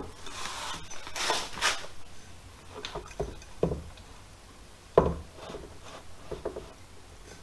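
Steel pipes being handled on the rim of a plastic tub: scraping rubs in the first couple of seconds, then a few separate knocks, the sharpest about five seconds in, with lighter taps after it.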